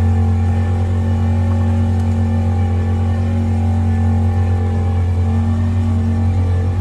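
Tohatsu 20 hp outboard engine running steadily at a raised idle of about 2500 RPM, held at a fixed throttle while a tachometer is being calibrated against it.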